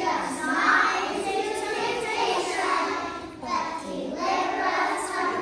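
A group of young children singing together in unison, many small voices at once.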